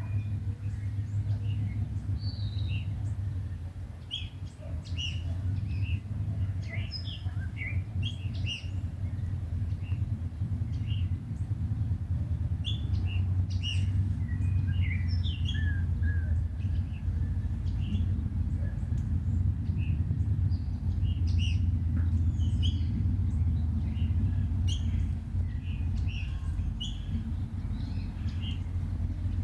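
Several small birds chirping and calling in short, scattered notes, over a steady low rumble.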